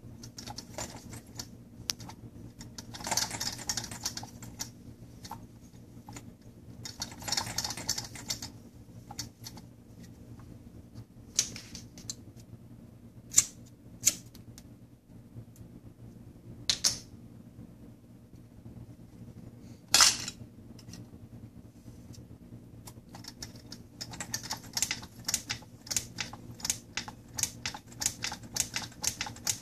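Handling noises and sharp clicks of a lighter as a tea candle is lit, then a homemade soda-can gamma Stirling engine starts running on the candle's heat, its moving parts ticking quickly and evenly, several ticks a second, in the last five seconds or so.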